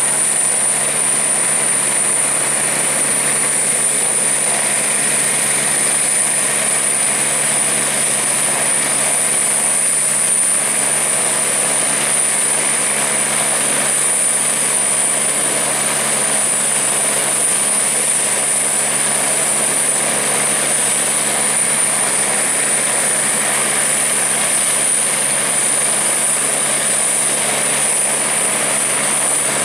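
Eurocopter EC145 (Airbus H145) helicopter running on the ground with its rotors turning: an even turbine and rotor noise with a steady high-pitched whine over it, holding at one level throughout.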